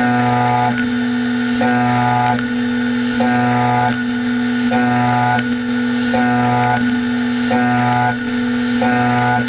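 Sandvik CoroMill Plura solid carbide end mill side milling a metal block in a CNC machining centre, using the WaveForm toolpath. Under a steady spindle hum, a ringing cutting tone comes and goes in a regular cycle, about once every 0.8 seconds.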